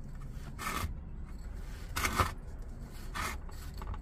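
Gritty, pebbly potting mix scraping and shifting in a ceramic pot as hands press and settle a freshly planted succulent: three short rasping scrapes.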